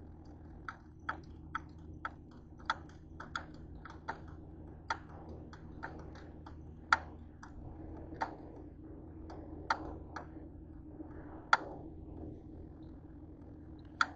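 Light, sharp clicks and taps, irregularly spaced at a couple a second and varying in strength, over a steady low hum.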